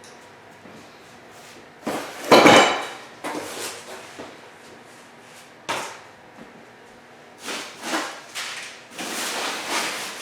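Cardboard boxes and office-chair parts being handled during unboxing: a few knocks and clatters, the loudest about two seconds in, with rustling near the end.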